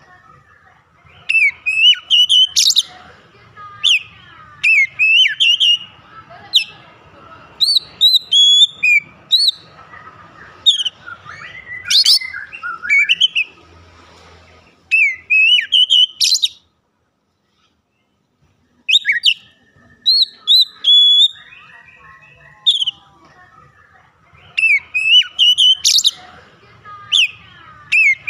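Oriental magpie-robin (kacer) in full song: loud, varied phrases of quick sweeping whistles and chattering notes. A complete break of about two seconds falls a little past the middle.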